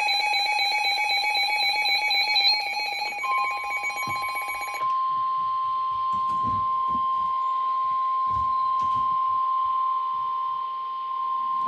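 Electronic emergency alert tones. A warbling several-pitch alarm sounds until about five seconds in. Under it, from about three seconds in, a single steady tone near 1,000 Hz begins and holds, the kind of attention tone sent before a weather warning.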